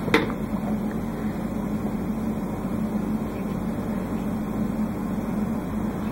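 A steady low mechanical hum, like a small motor running, with a single short click just after the start.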